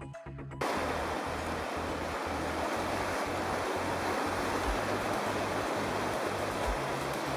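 Whitewater rapids rushing over and around boulders: a steady, full rushing-water noise that comes in suddenly about half a second in. Background music's bass line and a low thump about every two seconds run on beneath it.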